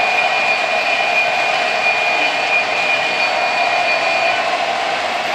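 O-gauge model diesel trains running on three-rail track: a steady whir of motors and rolling wheels, with a high whine that fades out about four seconds in.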